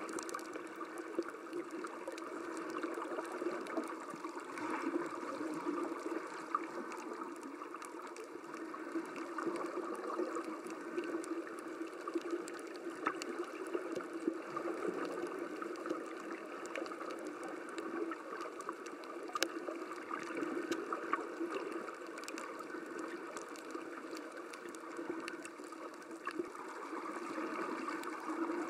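Muffled, steady sloshing water noise picked up by a camera held underwater, with faint scattered clicks.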